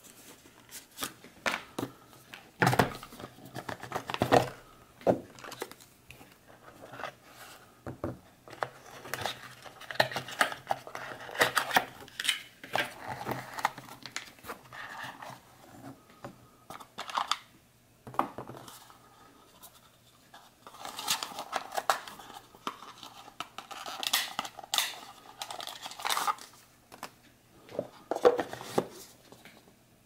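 Hands unpacking a small cardboard box: the box and its inner tray sliding and scraping apart, and the contents and box set down on a hard counter with knocks and clicks, in irregular bursts with a short lull about two thirds of the way through.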